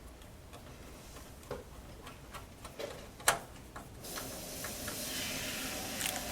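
Small clicks and taps of computer parts being handled, with one sharper click about three seconds in, then a steady hiss for the last two seconds.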